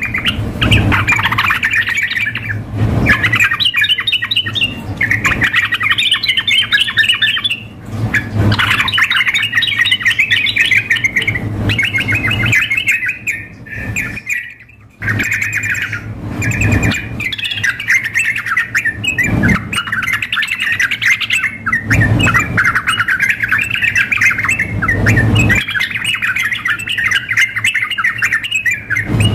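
Yellow-vented bulbuls (trucukan) calling and singing almost without pause in fast, chattering trilled phrases, with a brief break about halfway through. A steady low hum runs underneath.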